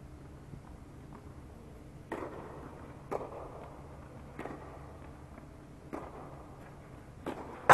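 Tennis ball being struck and bouncing during play in an indoor dome court: a sharp pop every second or so, with the loudest strike right at the end.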